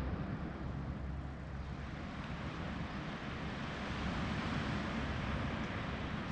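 Steady seafront ambience: wind rumbling on the microphone over an even wash of outdoor noise that swells slightly midway.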